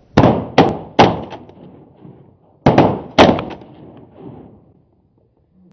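Shotgun blasts from several hunters at ducks: three quick shots about half a second apart, then two more about a second and a half later. Each shot is loud and dies away with a short echo.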